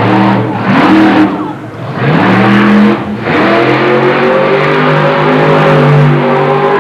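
Monster truck engines revving hard. The pitch climbs with each burst of throttle and drops off briefly twice in the first three seconds, then holds at high revs and creeps slowly higher.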